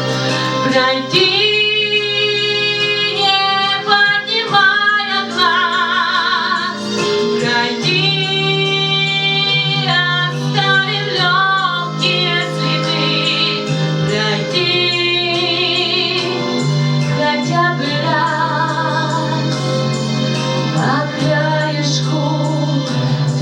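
Woman singing a Russian song with vibrato on long held notes, over backing music with steady low sustained notes.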